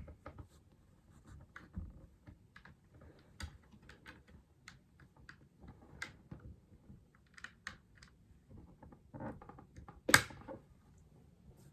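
Keys of a Logitech MX Mechanical Mini mechanical keyboard being pressed: scattered, irregular clicks at an unhurried pace. One louder knock comes about ten seconds in.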